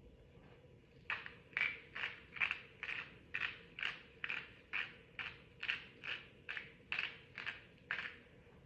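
A kitchen utensil scraping over food in quick, even strokes, about two and a half a second, faint and starting about a second in.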